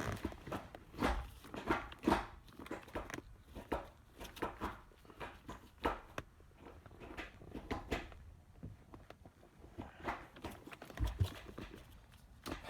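Mazda RX-8 six-speed manual gear lever with a newly fitted brass shifter collar being worked through the gates: a long, irregular run of clicks and clunks. The shifter keeps locking out of fifth and sixth, which the owner suspects comes from the collar or from how he installed it.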